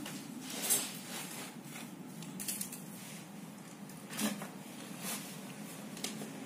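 Handling noises of TV wiring and small plastic connectors on a metal back panel: a handful of short clicks and rustles, the loudest about a second in, over a steady low hum.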